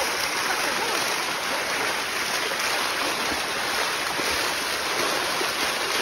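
Shallow water rushing steadily down a sloping limestone waterfall cascade.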